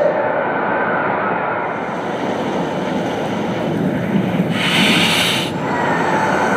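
Layered cinematic sound effects with no music: a continuous rushing, wind-like noise, with a short hissing whoosh about two-thirds of the way through.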